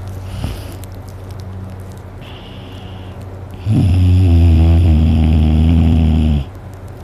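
A sleeping person snoring loudly with mouth open: one long, loud snore of nearly three seconds a little past halfway through, with a fainter breath sound a second or so before it, over a steady low hum.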